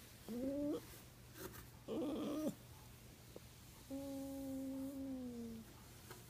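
Dog making funny vocal noises while being petted: a short rising moan, then a rougher one, then a long steady moan that drops slightly in pitch at its end.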